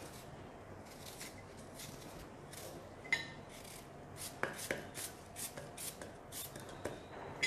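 Serrated kitchen knife cutting a peeled apple held in the hand into small cubes: faint, crisp slicing strokes, about three a second, starting a couple of seconds in, with a few sharper clicks among them.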